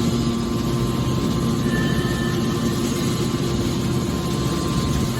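Hydraulic scrap-metal baler running, its power unit giving a steady mechanical hum with a low drone that holds even throughout.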